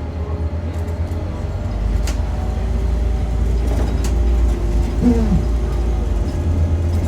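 Engine and road rumble heard from inside a moving bus. The deep rumble grows louder from about two seconds in, then eases off again near the end.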